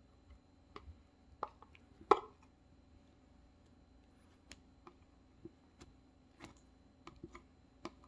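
Blue slime being squeezed, stretched and poked with the fingers, giving sharp sticky clicks and pops at irregular intervals, the loudest about two seconds in.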